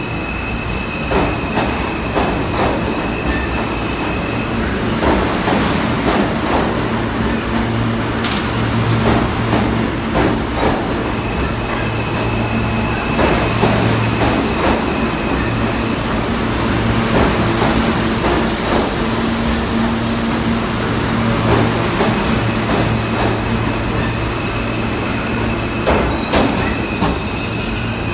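R160 subway train pulling out of the station and running past, with a steady low motor hum and repeated clicks of the wheels over the rail joints.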